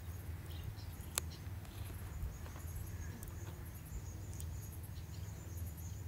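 Low, steady hum of honeybees on the combs of an open mini nuc hive, with a single sharp click about a second in as a frame is worked loose.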